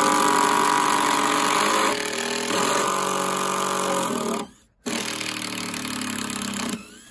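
Two cordless impact drivers, a Bosch GDR 18 V and a Makita 14.4 V, running together as they drive screws into a wooden pallet. Both stop briefly about four and a half seconds in, then run again to back the screws out.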